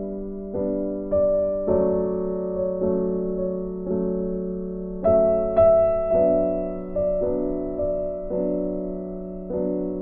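Background piano music: soft chords struck about twice a second, each dying away before the next.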